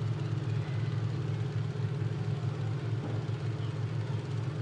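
Engines of several big derby cars running together, a steady low drone with no sharp rise or fall.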